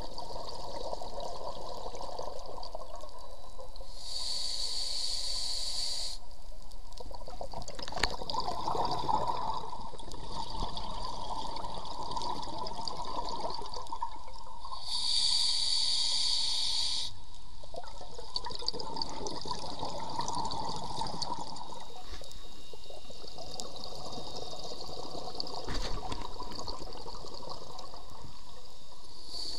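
Scuba diver breathing through a regulator underwater: a hiss of air on each inhalation, twice, each followed by several seconds of bubbling as the exhaled air escapes.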